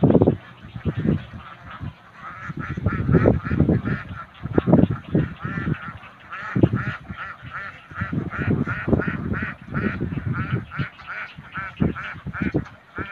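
Rapid, repeated honking animal calls, several a second, starting about two seconds in, over irregular low thumps.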